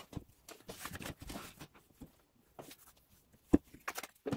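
Light handling noises of small parts and tools being moved on a workbench: soft rustles and scattered small clicks, with one sharper click about three and a half seconds in.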